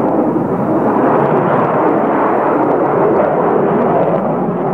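Loud, steady rumbling roar with no separate blasts, laid over aerial footage of a bomb strike.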